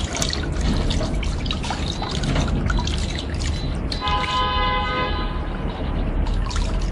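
Cooling water running out of a laser welder's internal cooler through its drain fitting and splashing into a plastic jug. About four seconds in, a steady horn-like tone sounds for about a second and a half.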